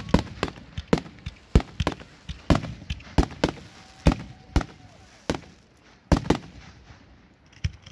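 Aerial fireworks shells bursting in quick succession, a string of sharp booms at about two a second that pauses after about six seconds before one more burst near the end.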